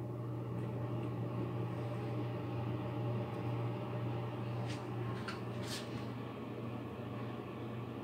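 Steady low electrical hum, with a few faint clicks about five seconds in.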